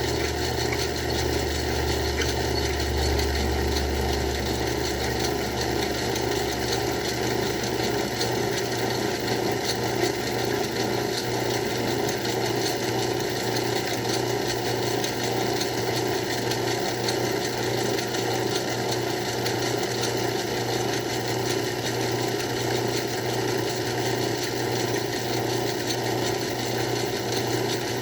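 Craftsman 109 bench lathe running steadily while a 1/2-inch drill bit fed from the tailstock bores through the workpiece. A low hum underneath fades out after about five seconds.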